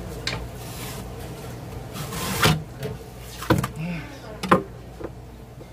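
Long knife scraping across a halibut fillet and plastic cutting board with one rasp about two seconds in, plus a few sharp knocks of the knife against the board, over a low steady hum.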